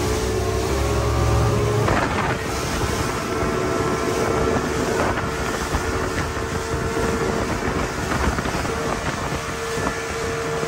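Outboard-powered motorboat running fast over choppy water: a steady engine drone under wind buffeting the microphone and rushing spray. Three sharp knocks about three seconds apart as the hull slams into waves.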